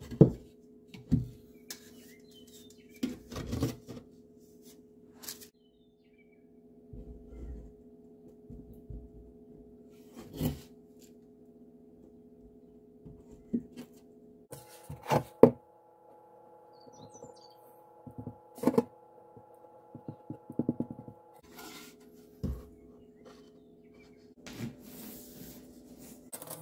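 Scattered sharp knocks and thunks of scrap wood pieces being handled and fastened during woodworking, over a faint steady hum that shifts in pitch twice.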